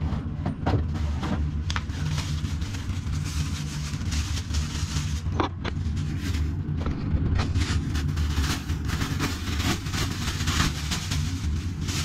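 Irregular clicks, knocks and scrapes of hand work prising an old toilet pan collar out of the floor waste pipe, over a steady low rumble.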